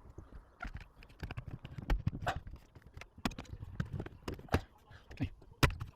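Irregular sharp knocks and clicks of hard parts being handled during cupboard fitting work, the loudest about two seconds in and near the end.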